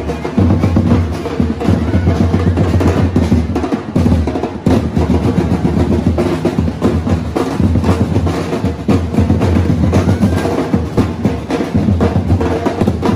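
Street percussion band of snare and bass drums playing a steady, rolling drum beat.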